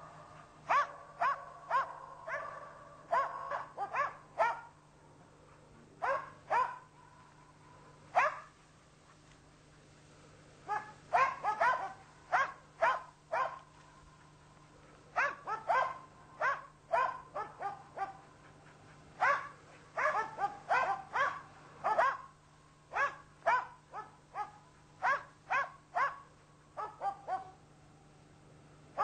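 Karelian Bear Dog barking at a brown bear it is holding at bay, in quick runs of sharp, high barks, two or three a second, broken by pauses of a second or two.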